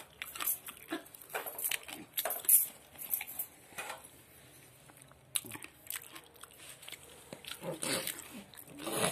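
A baby's mouth sounds while eating ghugute: short wet smacks and clicks, with a few brief babbling sounds near the end.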